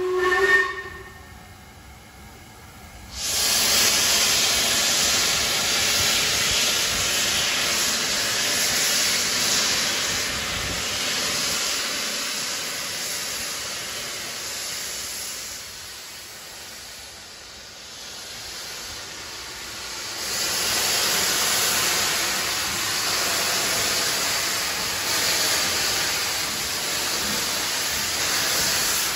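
A steam locomotive's whistle cuts off under a second in. About three seconds in, a loud, steady hiss of escaping steam starts suddenly from the locomotive. It eases off for a few seconds past the middle, then grows loud again.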